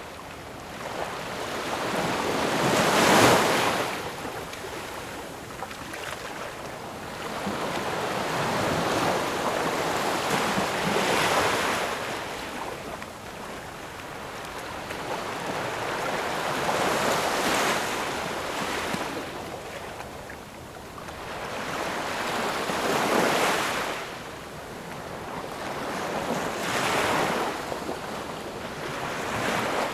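Ocean waves breaking and washing back, five surges that swell and fall away every five to eight seconds, the loudest about three seconds in.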